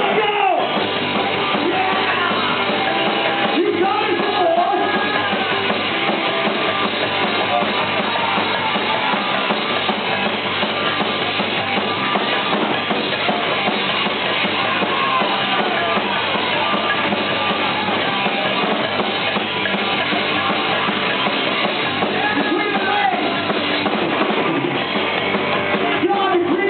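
Loud, continuous rock music with drums and singing.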